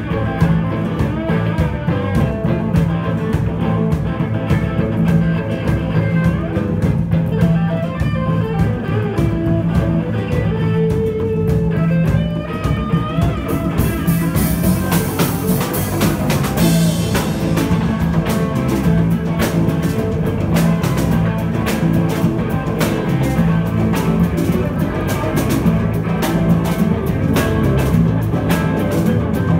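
Live rock band jamming: electric guitars playing over bass and a drum kit beat, with a bright wash of high sound from about 14 to 17 seconds in.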